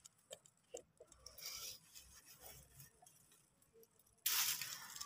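Leaves of a bitter gourd vine rustling faintly as a hand handles a gourd. About four seconds in, a sudden louder burst of rustling and tearing comes as the gourd is cut from the vine with scissors.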